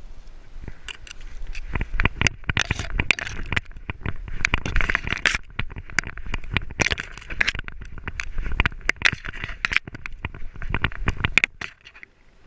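Long grass scraping and crackling against a dog-mounted GoPro as an English Springer Spaniel pushes through it, with irregular knocks and bumps from the jostling harness. It dies down shortly before the end.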